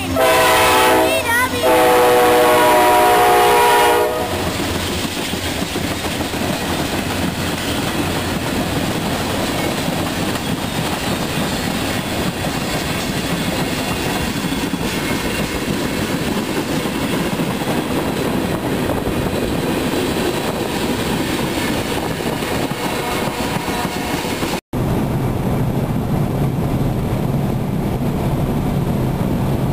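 A Norfolk Southern freight locomotive's air horn sounds at close range: one blast ends about a second in and a second blast lasts about two seconds. Then the train's cars roll past with a steady rumble and clatter of wheels on rail. About 25 seconds in this gives way to steady road noise inside a moving car.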